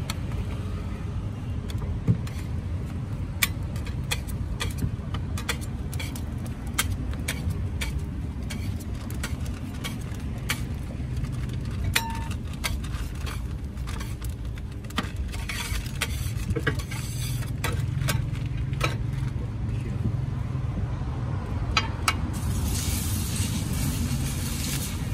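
Metal spatula clicking and scraping on a flat steel burger griddle over a steady low rumble. Near the end, beaten egg poured onto the hot plate sizzles with a sharp hiss.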